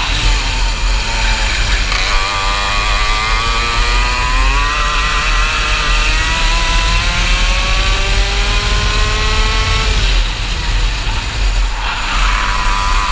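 125cc KF two-stroke kart engine under hard acceleration, its pitch climbing in two long pulls, dipping briefly about four and a half seconds in and falling away about ten seconds in as the revs drop, then picking up again near the end. Low wind rumble on the onboard microphone.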